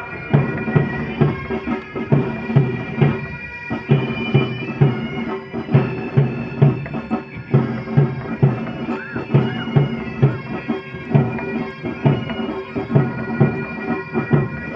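Military pipe band playing: bagpipes with a steady drone and a melody on top, over a drum beating about twice a second.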